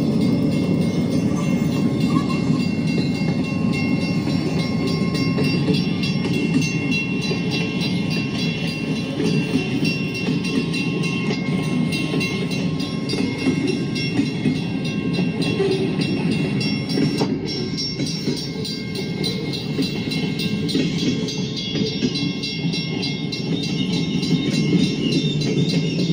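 Diesel-hauled freight train passing, locomotives and then a string of tank cars and boxcars, heard through a TV's speaker: a steady rumble of wheels on rail with some clickety-clack.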